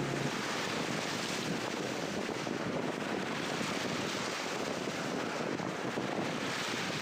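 Steady wind noise on the microphone together with the wash of sea waves at the shoreline.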